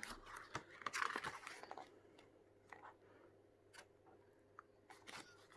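Faint rustle and crinkle of glossy photo-book pages being handled and turned, busiest in the first two seconds, then a few light clicks.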